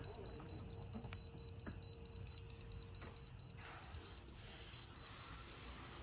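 Handheld EMF meter beeping faintly in a rapid, even train of high-pitched pips, its alarm for a high reading. Clothing rustles and a few soft knocks come as a person settles into the car seat.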